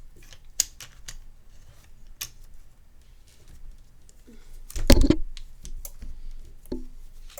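Light clicks and taps from a suction-cup phone-opening jig being fitted and adjusted by hand, with one louder knock about five seconds in.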